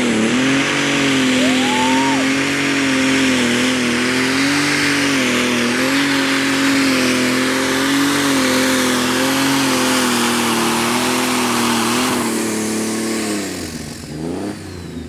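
Limited Superstock pulling tractor's engine running flat out at high revs under full load as it drags the weight-transfer sled, the pitch wavering slightly over a loud hiss. About 12.5 seconds in, the revs fall and the engine goes quieter as the driver comes off the throttle at the end of the pull.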